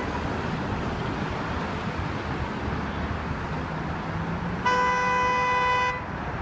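A single horn blast lasting about a second, sounding near the end over the steady noise of heavy street traffic.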